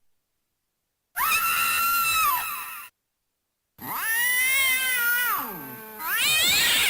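Recorded cat yowls from a Halloween toy's sound chip, taken straight from its circuit: three drawn-out meowing calls, the second sliding down in pitch at its end, with dead silence between them.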